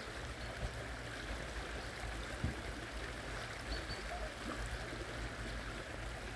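Shallow stream running steadily over stones.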